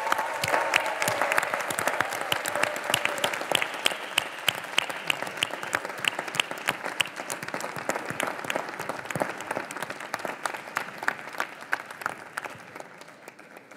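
A large audience applauding in a big hall, the clapping thinning out and dying away toward the end.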